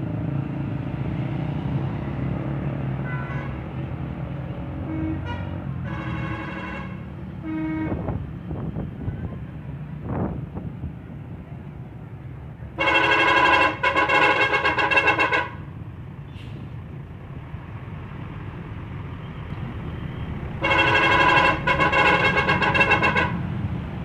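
Tour bus 'telolet' musical air horn sounding twice, each time for about two and a half seconds with a short break in the middle, over a steady low engine and road rumble. Shorter, fainter horn toots come earlier, about six to eight seconds in.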